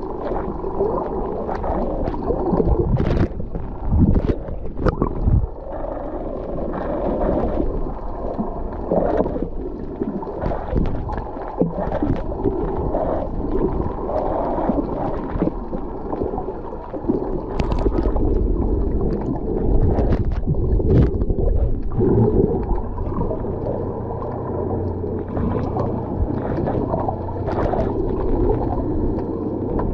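Underwater sound picked up by a camera held below the surface: a continuous muffled churning and gurgling of water, with scattered short clicks.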